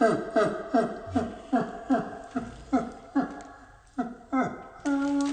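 Background music: a rhythmic run of short plucked-sounding notes, each falling in pitch, about two or three a second, ending on one held note.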